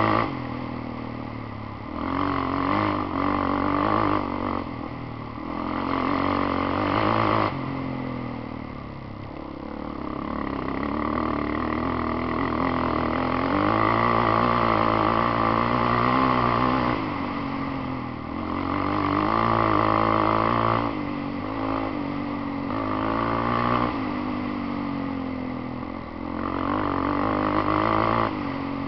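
Quad bike engine under load on a rough dirt track, its pitch rising and falling over and over as the throttle opens and closes.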